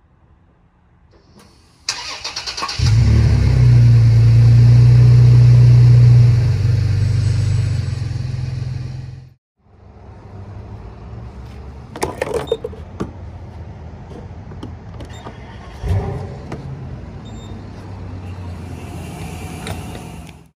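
A pickup truck's engine starts and runs loudly for several seconds, easing off before it cuts out. Then comes a quieter steady hum at a fuel pump, with a few knocks and clatter as the fuel nozzle is handled.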